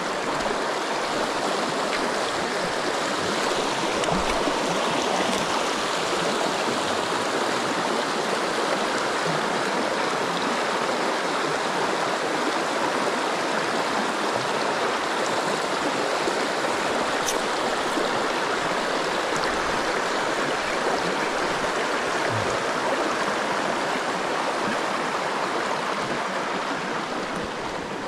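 River water rushing steadily over rocks, an even, unbroken rush.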